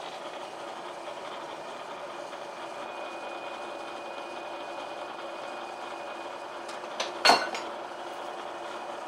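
Bridgeport vertical milling machine spindle running steadily with a faint high whine. A little after seven seconds in there are a couple of light clicks and then one sharp metallic clink, the loudest sound.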